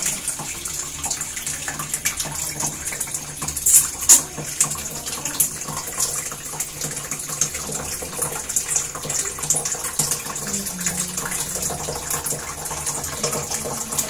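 Water running from a hose into the plastic wash tub of a Sharp twin-tub washing machine, a steady splashing fill that tests whether the newly replaced drain-valve seal holds water. Two brief sharp knocks about four seconds in.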